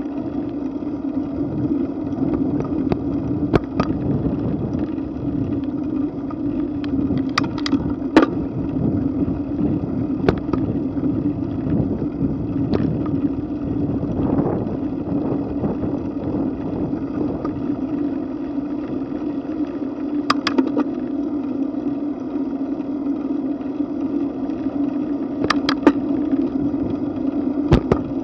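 Steady wind and road rumble on a camera riding along on a moving bicycle over a paved path, with a few sharp clicks and rattles scattered through it.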